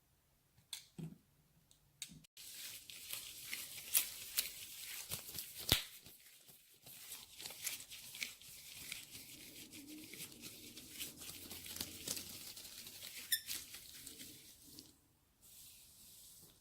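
Close-miked crinkly, crackling handling noise from hands working an object, dense with small sharp clicks; it starts about two seconds in and dies down near the end.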